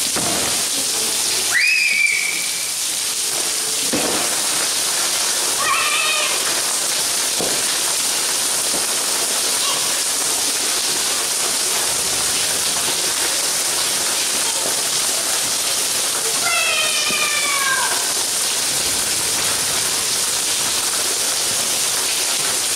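Steady rain falling on paving, a constant hiss. A few brief high voice cries come through it, about two seconds in, around six seconds, and near the end.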